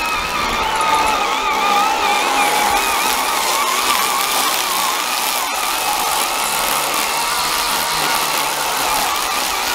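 Electric motors of a child's ride-on John Deere toy tractor and its tow-behind mower whining steadily while cutting through thick grass, the whine wavering in pitch as the load changes.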